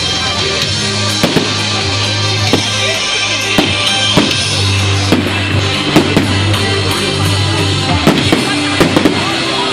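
Loud music with drums and bass playing through a fireworks display, with sharp firework bangs and crackles at irregular moments, thickest near the middle and the end.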